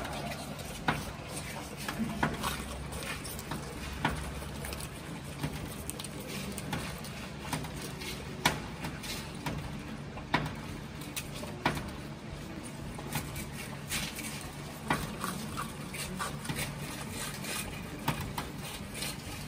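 Baby capybara chewing cabbage leaves: irregular crisp crunches, a few every couple of seconds, over a low steady hum.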